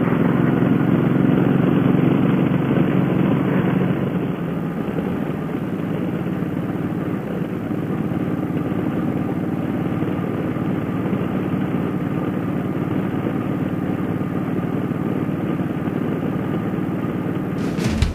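Suzuki Boulevard M50's V-twin engine running steadily while cruising, with wind and road noise.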